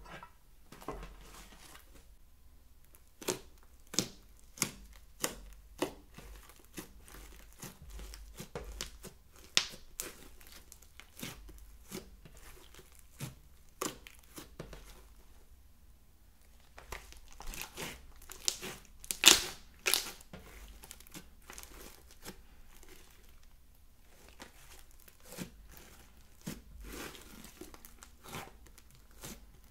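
Fluffy green slime with small beads mixed in, pressed and stretched by hand, giving irregular sticky pops and crackles. The loudest, densest crackling comes about two-thirds of the way through.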